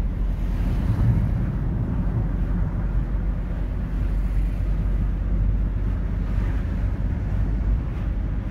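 Steady low rumble of a vehicle in motion, with wind buffeting the microphone.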